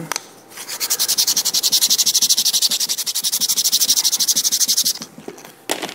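Sandpaper rubbed quickly back and forth on the end of a wooden popsicle-stick rotor blade, a fast, even rasping that starts about half a second in and stops about five seconds in. It is taking a little weight off the heavier blade to balance the rotor.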